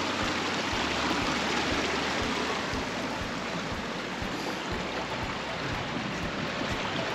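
Steady rushing hiss with a trail runner's footfalls thudding at a regular running pace, about two and a half a second.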